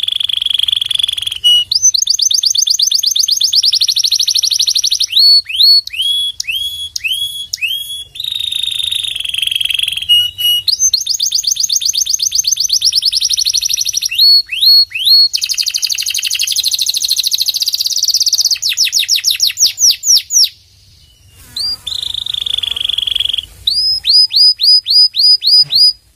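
Domestic canary singing a long, varied song: rapid ringing trills alternate with strings of separate sweeping chirps and a very fast run of notes. There is a short pause about three-quarters of the way through, then the song picks up again with a trill and a row of repeated notes.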